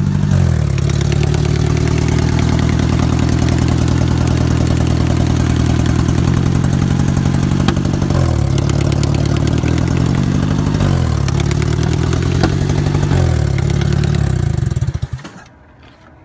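Honda car engine idling unevenly with a rapid steady ticking; its speed rises and falls a couple of times, then it shuts off near the end. The owner suspects the tick is a bent valve or a vacuum leak rather than rod knock.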